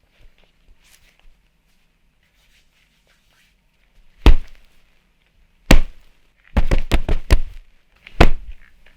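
Punch sound effects made with Foley props: a series of sharp, hard hits, one about four seconds in, another near six, a quick flurry of several around seven, and another near eight.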